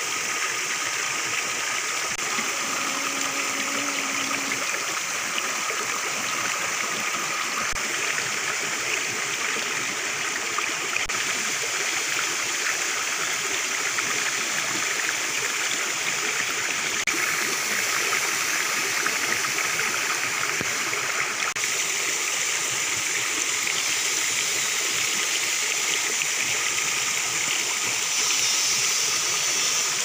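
Shallow rocky stream flowing steadily, a constant rush of water over stones.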